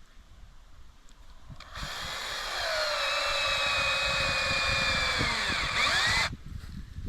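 A power drill runs for about four and a half seconds with a high motor whine. Its pitch sags near the end, as if under load, and then it stops suddenly.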